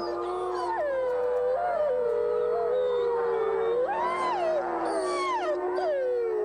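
Gray wolves howling in chorus: several long howls overlap, gliding up and down in pitch, while one voice holds a steady low note throughout.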